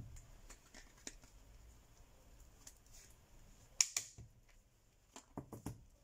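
Faint clicks and snaps of a Huawei P Smart 2019's back cover being prised off the frame by fingernail, its clips letting go. The sharpest click comes about four seconds in, with a few more near the end.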